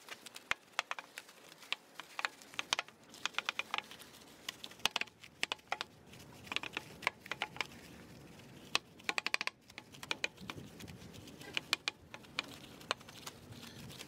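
A wheel brush scrubbing a car wheel, with quick, irregular clicks and clacks as it works over the rim and spokes.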